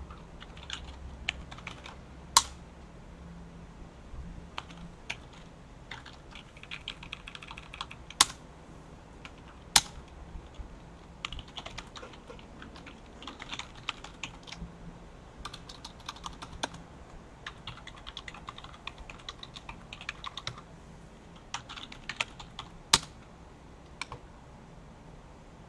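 Typing on a computer keyboard: runs of quick keystrokes with pauses between them, and a few much louder single clicks.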